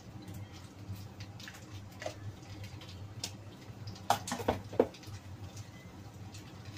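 Stir-frying noodles in a wok on a gas hob: a light sizzle with scattered small crackles and utensil scrapes over a steady low hum, and a few loud clatters of metal cookware about four seconds in.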